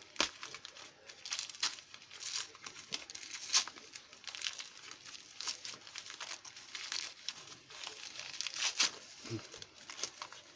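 Paper wrapping held with tape being crumpled and torn off by hand, in irregular crinkles and rips as a wrapped lock is unwrapped.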